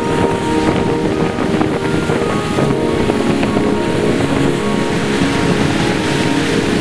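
Rough sea surging and breaking on a rocky shore, with wind buffeting the microphone.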